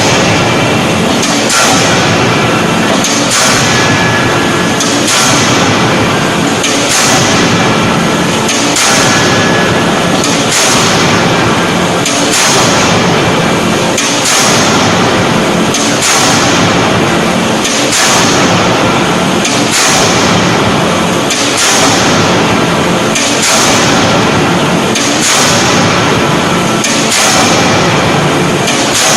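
18-ton fully hydraulic closed-die forging hammer striking a forging in its die, about one heavy blow every two seconds, over continuous loud machine noise.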